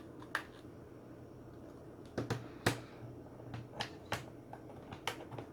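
A handful of short, sharp plastic clicks and taps from handling small plastic devices and USB cables, with the loudest about two and a half seconds in, over a faint low hum.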